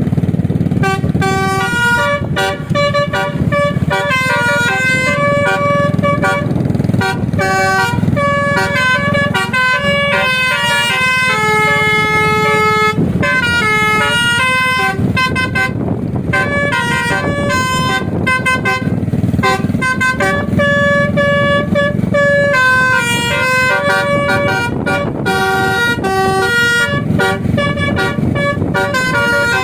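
Basuri musical air horn playing a quick melody of short, changing notes, with a few longer held notes midway, over a steady low rumble.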